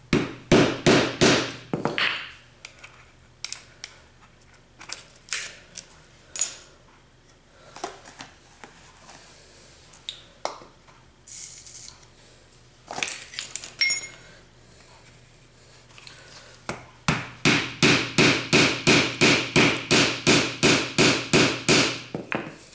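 A mallet pounding on a rammer in quick, even runs of strikes, about three or four a second, packing granulated black-powder rocket fuel into a paper tube around a spindle. One run comes in the first two seconds and a longer one starts about five seconds before the end. In between come scattered clinks and scrapes and a short rustle of granules poured through a plastic funnel.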